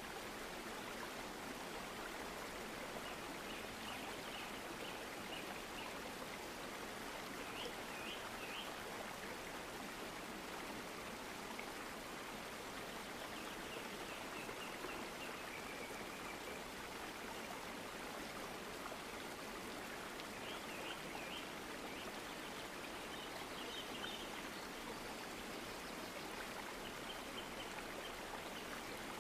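Steady low hiss of background noise, with faint high chirps a few times.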